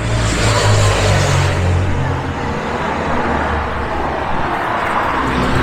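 City street traffic: car engines running close by with a steady low hum, and the tyre hiss of a vehicle going past in the first second and a half.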